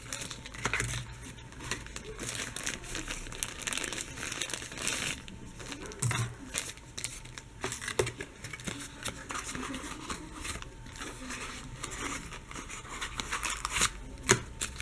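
Earphone packaging being pulled off and handled: irregular crinkling and rustling with frequent sharp crackles, a little louder near the end.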